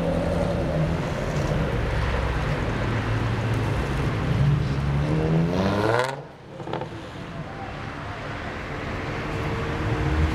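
Car engines running as cars pull away, one revving up with a rising pitch just before six seconds in. The sound then drops away suddenly and builds back up to steady engine noise toward the end.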